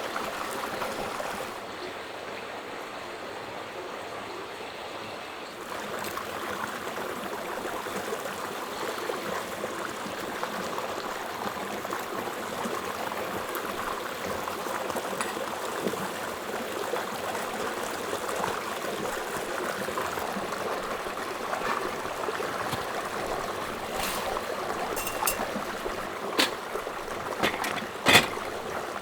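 Mountain stream running with a steady rush of water, with a few sharp clicks near the end.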